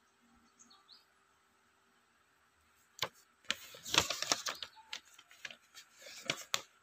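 Paper pages of a printed instruction booklet being turned by a gloved hand: rustling and crackling that starts about three seconds in, is loudest about a second later, and dies away near the end.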